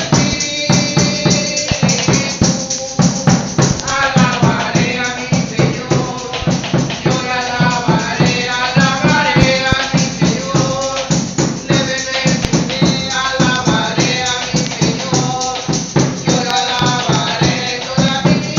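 A rope-tensioned marching drum beaten in a steady rhythm, with a tambourine shaking along and a woman's voice singing over them.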